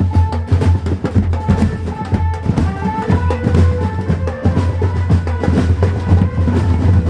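Loud, drum-heavy procession music from a drum band: dense, quick drum strikes over a steady deep bass, with held melodic notes above.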